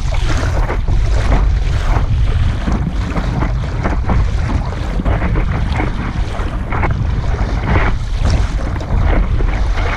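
Wind rumbling on the microphone, with choppy water slapping and splashing against the nose of a stand-up paddleboard at irregular moments as it is paddled along.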